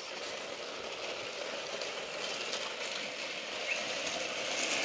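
Battery-powered Thomas & Friends toy trains running along plastic track: a steady whir of small motors and wheels.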